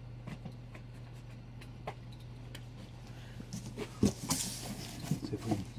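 Comic books being handled and shuffled: faint clicks, then louder rustling from about three and a half seconds in with a sharp knock near four seconds, over a steady low hum.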